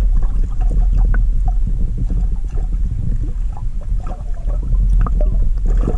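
Water heard through a submerged camera: a heavy, muffled rumble with scattered small knocks and splashes as a hooked rainbow trout struggles near the surface.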